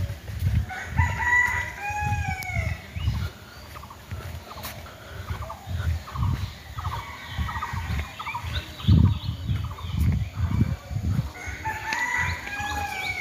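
A rooster crowing twice, about a second in and again near the end, with hens clucking in between. A run of low thumps sounds under the calls, loudest about nine seconds in.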